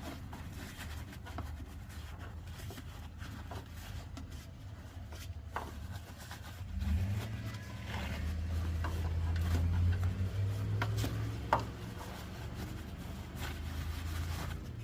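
Light clicks, taps and rubbing of engine-bay parts being handled, over a low steady hum that grows louder for a few seconds around the middle.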